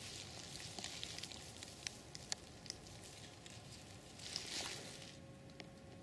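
Faint crackling and rustling of dry leaf litter under a crawling snake: scattered small ticks and crackles, with a brief soft rustle about four and a half seconds in.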